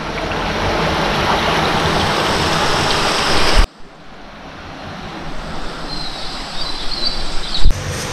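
Wind rushing and gusting on the microphone outdoors, a steady noise that swells, cuts off suddenly about three and a half seconds in, then builds up again. A bump near the end.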